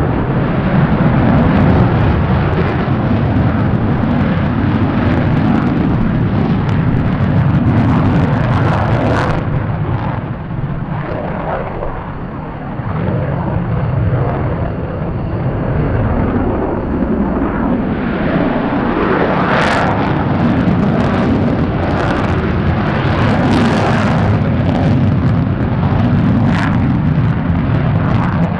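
Jet aircraft engines making a loud, continuous rumble that eases briefly about a third of the way through, with crackling in the second half.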